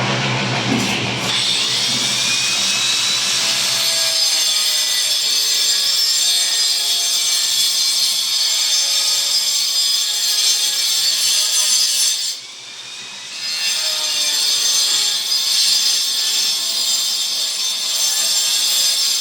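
Power saw cutting precast stone, a loud, steady high-pitched grinding whine. The cutting sound drops away for about a second after twelve seconds, then resumes.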